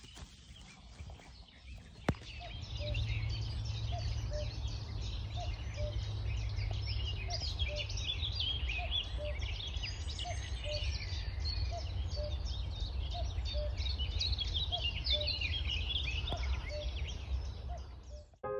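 Common cuckoo calling its two-note falling "cuck-oo" over and over, about once every second and a half, starting about two seconds in. Behind it is a dense chorus of other songbirds and a low rumble.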